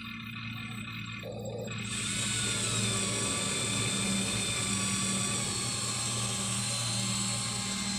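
Electric drive motors and plastic gearboxes of a Huina 1593 RC excavator whining under power, kicking in about two seconds in over a steady low hum.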